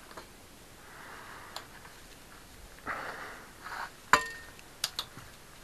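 Metal clinks from bicycle parts being worked during a gear adjustment: a few light ticks, then a sharp clink with a short metallic ring about four seconds in, followed by two quicker clicks. Soft breathing between them.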